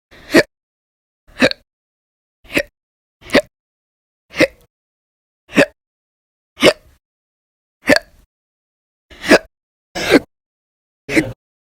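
A woman hiccuping in a steady run: eleven short, sharp hiccups about one a second, with silence between them.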